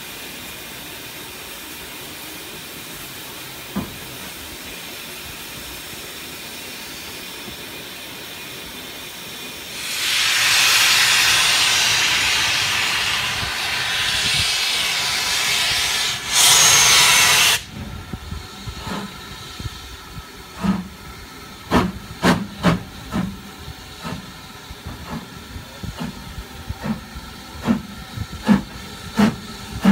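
Steam locomotives at a station: a steady steam hiss, then a loud rush of escaping steam from about ten seconds in that cuts off suddenly a few seconds before the halfway mark of the second half. After it, a steam locomotive's exhaust chuffs, uneven at first and coming closer together near the end, over a faint continuing hiss.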